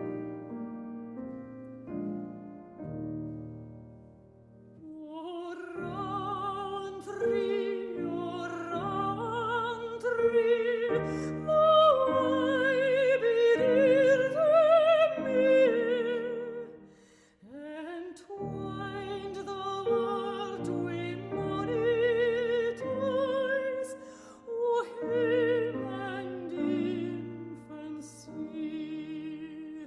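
Classical singing with strong vibrato over piano accompaniment. The piano plays alone for the first few seconds, the voice comes in about five seconds in, and the music breaks off briefly a little past halfway before resuming.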